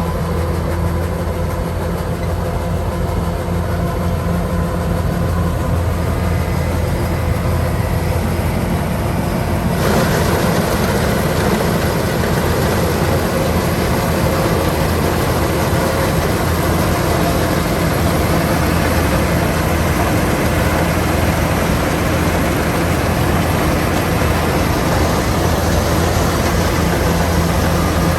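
Kubota DC-105X combine harvester running with a steady diesel drone and machinery clatter. About ten seconds in, the sound grows fuller and slightly louder.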